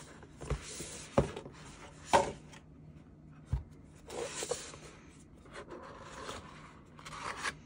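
A cardboard album box being slid out of its printed card sleeve and handled on a tabletop: dry paper rubbing and scraping, with a few sharp taps of the box against the table.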